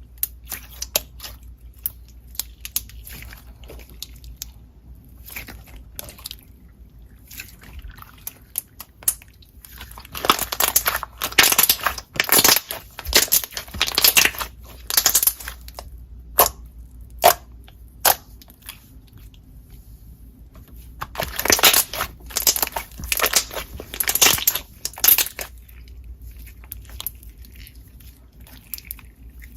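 Slime being squished and pressed by hand: sticky clicks, pops and crackles. There are two louder stretches of dense crunchy crackling, one about ten seconds in and another past twenty seconds.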